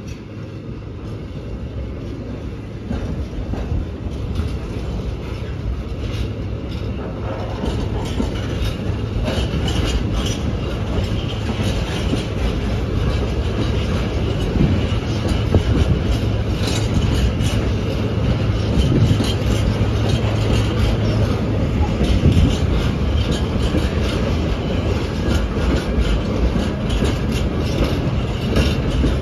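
A freight train of tank wagons rolling slowly past, its wheels clicking over the rail joints, with a low diesel engine hum that grows steadily louder as the locomotive draws near.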